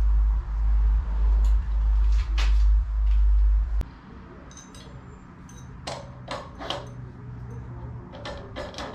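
A heavy low rumble that cuts off suddenly about four seconds in, then metal clicks and clinks of tools and parts being handled at the small engine mounted on the mini bike frame.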